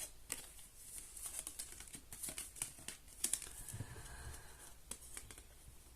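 Tarot cards being handled and laid out: soft, irregular taps, flicks and rustles of card stock.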